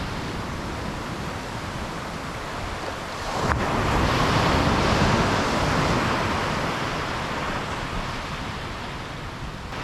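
Small ocean waves breaking on a sandy beach. One wave swells up about three and a half seconds in, with a brief click at its start, then washes out and fades over the next few seconds.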